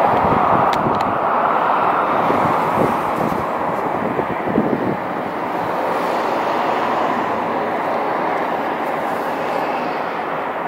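Steady outdoor city background noise, an even rushing hiss, with a few low thuds in the first half; it eases slightly toward the end.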